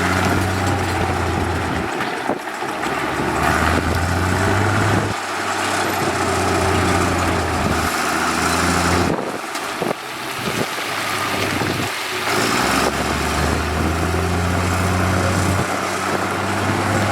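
Heavy diesel construction machinery running under load, a deep engine drone over mechanical noise. The engine note changes pitch and shifts abruptly several times.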